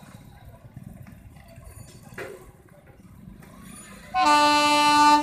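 Low traffic rumble at a railway level crossing, then about four seconds in a loud horn blares on one steady note for about a second.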